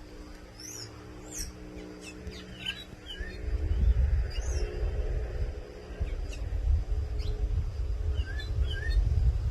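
Sabiá thrush calling in short, scattered chirps and gliding whistles. From about a third of the way in, a low wind rumble on the microphone becomes the loudest sound, over a faint steady low hum.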